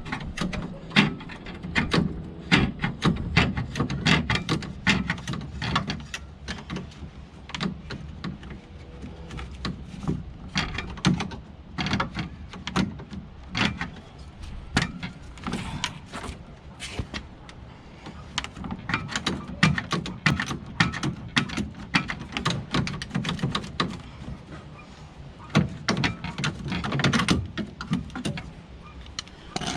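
Many irregular clicks, knocks and clanks of hand work on metal car parts, over a low rumble.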